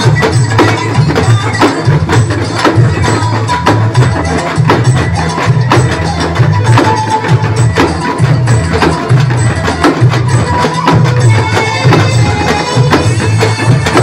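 Live drumming by a street procession band: barrel drums and large frame drums played with sticks, beating a fast, dense, unbroken rhythm.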